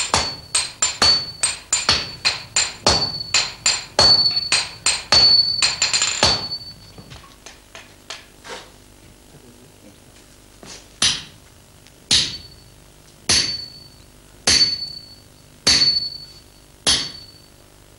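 Hammer blows on a red-hot sword billet on a steel anvil, forging a Japanese sword: a fast run of strikes, about three or four a second, each with a high ring, for the first six seconds. After a lull with a few faint taps, single heavy blows come a little over a second apart, each ringing.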